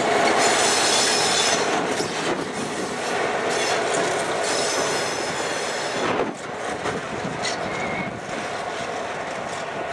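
Canadian Pacific freight train's diesel locomotives and cars rolling past on the rails, with high-pitched wheel squeal about half a second in and again around four and a half seconds in. The sound drops off about six seconds in as the locomotives move away.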